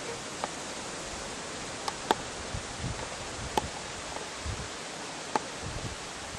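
Steady even hiss of outdoor background noise, with a few sharp clicks and some soft low thumps in the middle.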